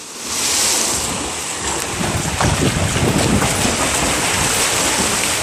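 Water splashing as two swimmers dive into a pool and race, heavy spray at the start and then steady churning from their kicks and strokes.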